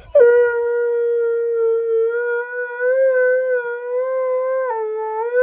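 Husky (a husky-malamute mix) howling one long unbroken note that starts suddenly, wavers slightly in pitch, dips briefly near the end and rises again.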